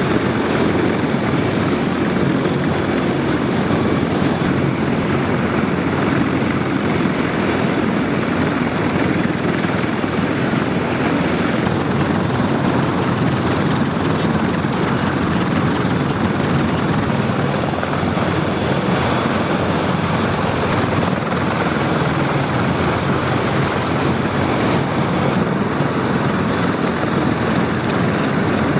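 Several CH-53E Super Stallion heavy-lift helicopters running on the ground with their rotors turning. A loud, steady, unbroken drone of rotor and turbine-engine noise, with a faint high whine over it.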